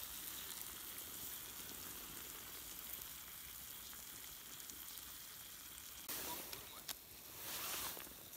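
Food frying in a pan: a steady sizzle with small crackles, swelling louder about six seconds in and again near the end.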